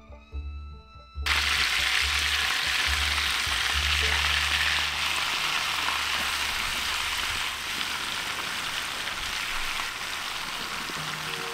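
Butter sizzling and foaming in a frying pan, a steady hiss that cuts in suddenly about a second in. Background music with low bass notes plays under it through the first half.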